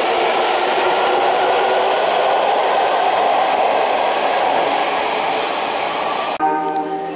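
Electric commuter train pulling out of an underground station, a steady rumble of wheels and motors echoing off the platform walls that eases slightly as it moves off. About six and a half seconds in, the train sound cuts off suddenly and a chiming tune of stepped notes takes over.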